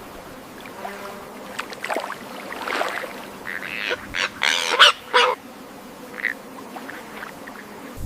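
An animal calling in a series of short, harsh calls, loudest about four to five seconds in, then a few fainter ones.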